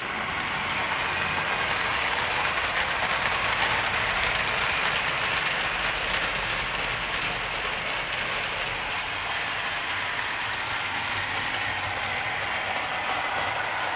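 Tri-ang 00 gauge model train running on the track: the Princess Elizabeth locomotive's motor whirring and the coaches' wheels, with their large flanges, rattling over the rails. The steady rattle fades slightly towards the end as the train draws away.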